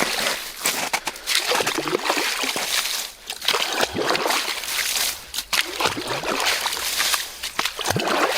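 Water splashing and sloshing in an ice-fishing hole, irregular and continuous.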